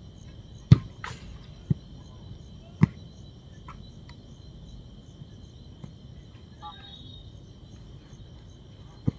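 A football kicked on the pitch: four sharp thumps, three in the first three seconds, the first the loudest, and one more near the end. Under them runs a steady high-pitched insect chirring.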